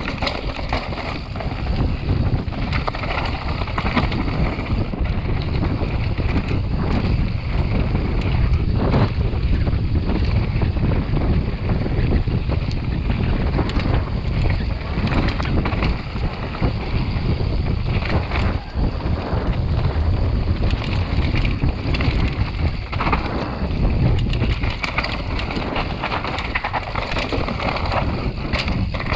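Wind buffeting the microphone of a camera on a mountain bike descending a dirt and rock trail, over constant tyre noise and the frequent rattling and knocking of the bike over rough ground.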